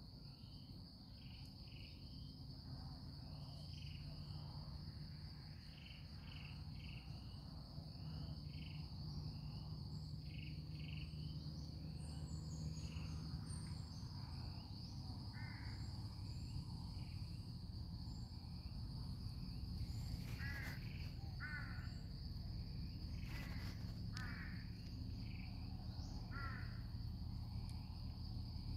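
Outdoor ambience of a steady, high-pitched insect drone with short bird calls repeating over it, a few louder calls in the second half, above a low rumble.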